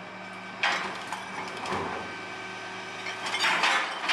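Rear-loader garbage truck's compactor working: a steady low hum, with bursts of crunching and creaking as the packer blade squashes the trash into the hopper, a sharp one about half a second in and a longer, louder one near the end.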